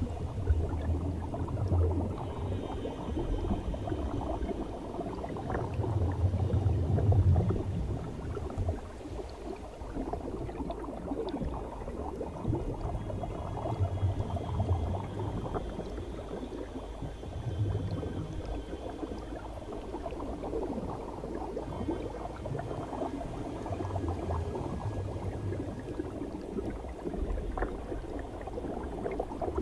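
Underwater bubbling and gurgling from air bubbles streaming up out of helmet-diving helmets fed by surface air hoses. A low rumble swells every few seconds.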